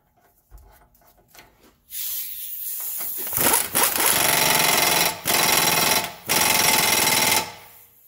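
Pneumatic impact wrench running an axle nut down onto the front axle: it spins freely for about a second and a half, then hammers in three bursts with short breaks between as the nut tightens.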